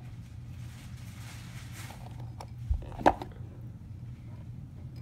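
A tortoise clambering between its ceramic water bowl and plastic hide, its shell knocking against them: a dull thump and then a sharp knock about three seconds in, with a few faint clicks, over a steady low hum.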